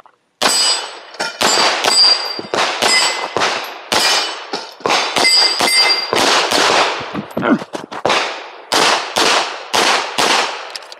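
Semi-automatic pistol fired in a fast timed string, about three shots a second, with a short pause about eight seconds in. Steel target plates ring with a clear ping when hit.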